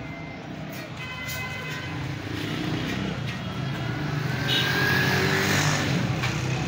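A motor vehicle engine running close by over street noise, growing louder to a peak about five seconds in.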